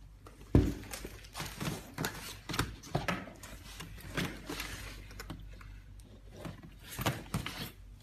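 Handling sounds from a canvas handbag with a metal clasp frame: a sharp thump about half a second in, then scattered knocks, rustles and light clinks of the metal frame and strap hooks.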